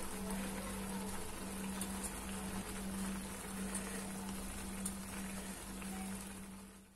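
Pan of Maggi noodles in watery vegetable masala broth simmering and bubbling on the stove as it is stirred, over a steady low hum; the sound fades out at the very end.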